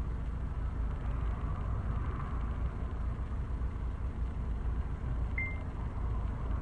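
Steady low street rumble with a light hiss, with one short high beep about five and a half seconds in.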